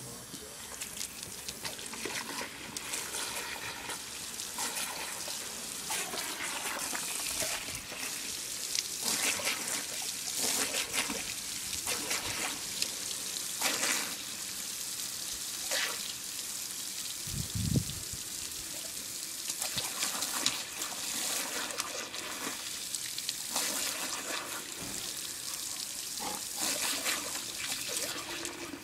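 Garden hose spraying water: a steady hiss of spray that surges and splashes unevenly every second or so. One short low thump about two-thirds of the way through.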